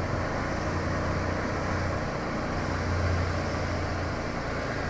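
Diesel engine of a Mitsubishi Fuso dump truck running with a steady low drone.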